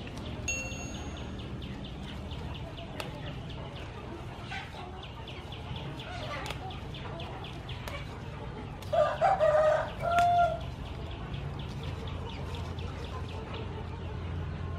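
A rooster crows once about nine seconds in, a loud call in two parts lasting about a second and a half. Behind it runs a fast, even ticking.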